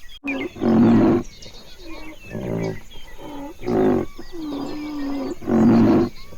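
An animal calling loudly four times, each call about half a second long, with a steadier held call between the last two; small birds chirp in the background.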